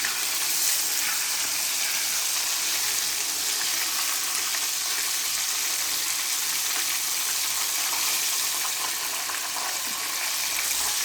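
Flour-dredged fish frying in plenty of hot oil: a steady sizzle with fine crackling.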